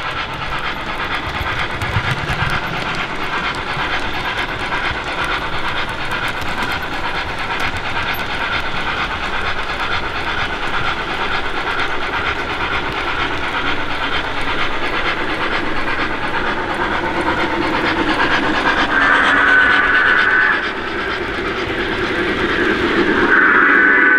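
O gauge model steam locomotive running with its onboard sound system: steady steam chuffing and hiss over the clatter of the wheels on the track, swelling louder twice near the end.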